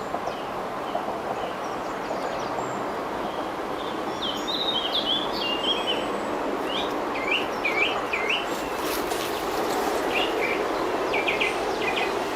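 Small birds singing, with many short chirps and warbled phrases, over a steady rushing background noise.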